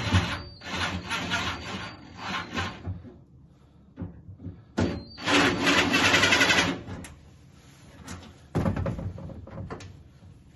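Rattling and scraping of metal car-door lock and latch parts being handled, in several bursts of a second or two with clicks between them.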